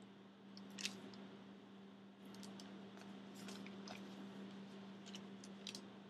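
Faint squishes and light clicks of hands pressing and smoothing soft, moist clay, over a steady low hum.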